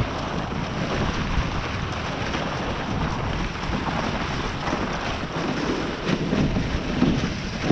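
Steady rushing noise of a dog sled underway on a snowy trail: runners sliding over the snow, with wind buffeting the microphone.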